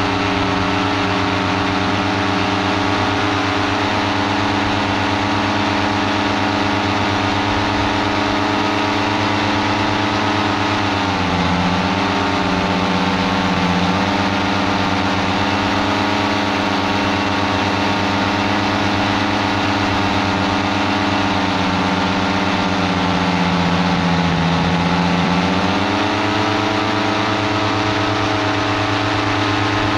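Paramotor engine and propeller running steadily in flight, with a rush of air. About ten seconds in, the engine note drops as the throttle is eased. It dips lower again from about 22 seconds and picks back up near 26 seconds.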